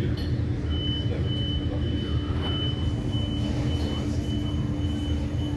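Steady low rumble of street traffic, with a constant hum and a thin high-pitched whine that comes in under a second in and carries on with short breaks.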